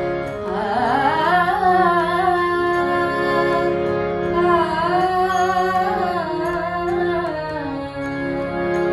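Woman singing a Hindustani devotional bhajan in a slow, ornamented melodic line over held harmonium chords.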